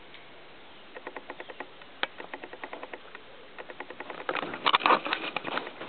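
Light, irregular clicks and rubbing from hands fiddling with a small object, with one sharper click about two seconds in. The clicking grows denser and louder near the end.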